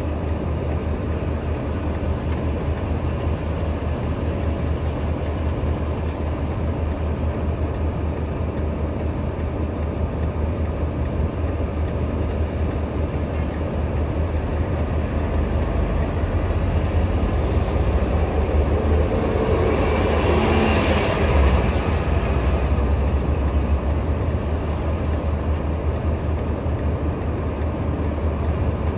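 Heavy vehicle engines running steadily with a deep rumble. A passing vehicle rises and fades, loudest about twenty seconds in.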